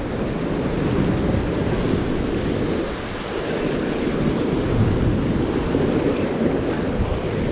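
Ocean surf with wind buffeting the microphone: a steady rushing noise.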